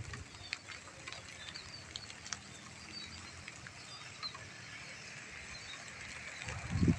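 Light drizzle falling over rice paddies, a soft steady patter with scattered sharp drop ticks. Small high chirps recur throughout, and a low rumble swells near the end.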